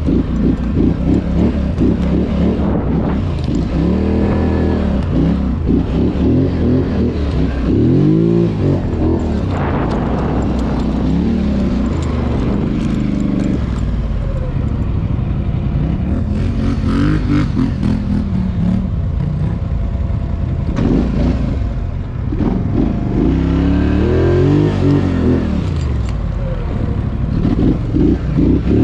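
ATV engine running under load, its pitch rising and falling several times as the throttle is opened and eased off.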